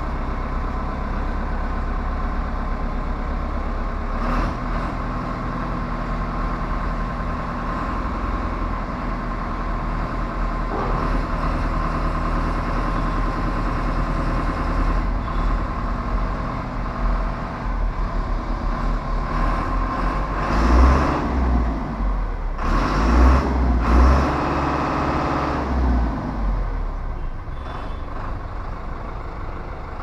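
A heavy truck's engine running steadily, with a few louder swells about two-thirds of the way through.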